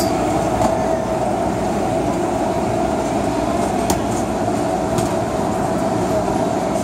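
A metro train standing at a platform with its doors open: a steady hum from the train and station, with passengers stepping through the doorway and a couple of sharp clicks about four and five seconds in.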